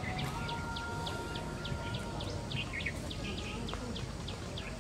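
A bird repeating a short, falling chirp over and over, about three times a second, over a steady low background of outdoor noise. Near the start a second, even whistled tone holds for about two seconds.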